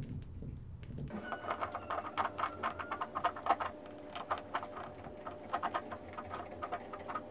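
Coiled plastic cables rubbing and clicking against each other in quick, irregular ticks as a thin coiled sonar wire is worked free of a trolling motor's coiled GPS cable, starting about a second in.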